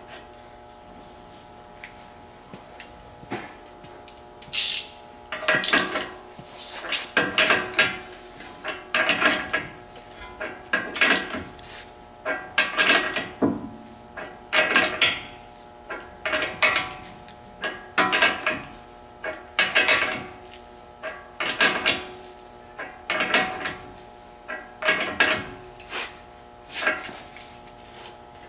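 Hand ratchet snugging the nylock nuts on a truck's ball joint studs: a burst of metallic clicks on each stroke, repeating about every two seconds from about five seconds in.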